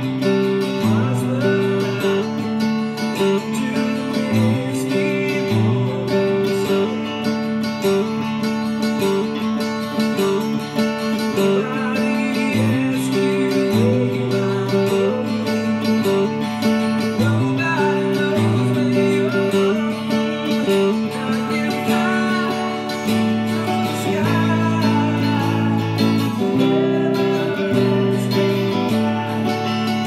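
Music: a Fender Stratocaster electric guitar picked in a slow rock ballad, over sustained low notes that shift every second or so.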